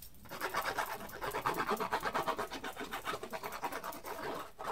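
A white pen scratching rapidly across black cardstock in fast back-and-forth zigzag strokes, drawing a scribble pattern on the card.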